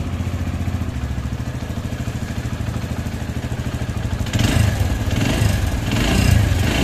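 TVS Radeon BS6's single-cylinder four-stroke engine idling with an even, rapid pulse, getting louder and more clattery about four seconds in. The top end makes an intermittent chattering noise that the mechanic puts down to the camshaft shifting up and down and knocking in the head, because its bearing has sunk below the face, with the rocker pins also involved.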